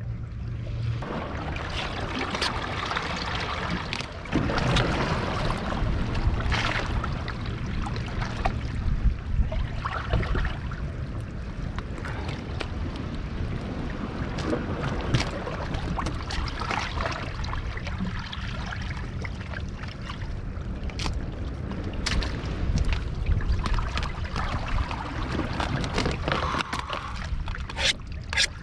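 Seawater sloshing and trickling among the shoreline rocks over a steady low rumble, with a few sharp clicks.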